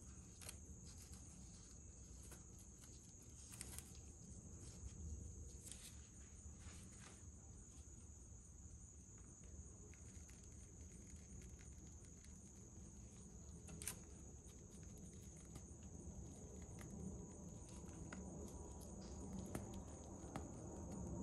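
Faint, steady high-pitched insect drone with a few soft clicks.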